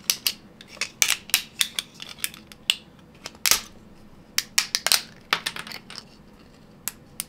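3D-printed plastic tree supports snapping and cracking as they are broken off a print by hand: a run of sharp, irregular clicks and snaps in bursts, the loudest about a second in and again about three and a half seconds in.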